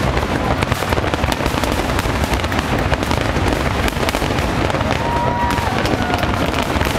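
Aerial fireworks going off in a dense, continuous barrage of overlapping bangs and crackles.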